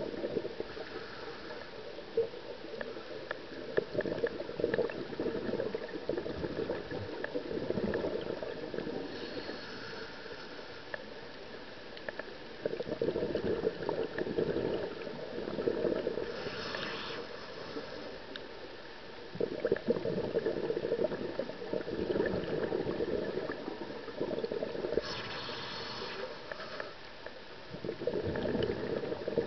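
Scuba diver breathing through a regulator underwater: long bubbling rushes of exhaled air, each followed by a short hiss of inhalation, a full breath about every seven or eight seconds.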